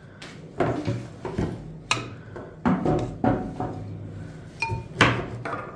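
Kitchen utensils knocking against a metal pot while ingredients are added and mixed: a string of irregular sharp knocks, with a short ringing clink near the end.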